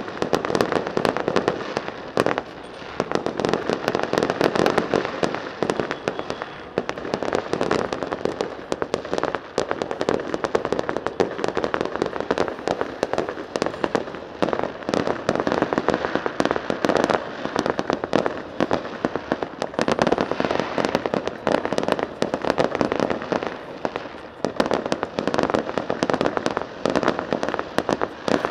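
Fireworks display going off: a dense, continuous run of bangs and crackles, many each second, easing briefly a few times.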